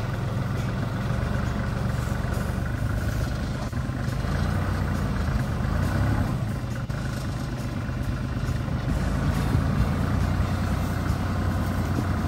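Kubota KL340 tractor's diesel engine running steadily, with small rises and falls in level.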